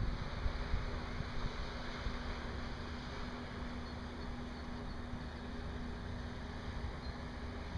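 Diesel engine of a loaded inland container ship under way on a river, a steady hum over an even hiss.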